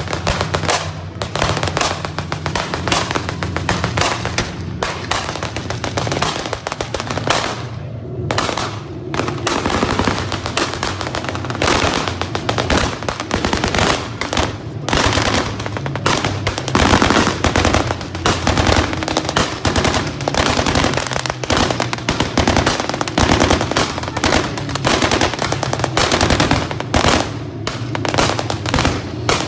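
Staged anti-aircraft barrage: a dense, continuous rattle of rapid bangs and crackles from blank fire and pyrotechnics, thinning briefly about eight seconds in.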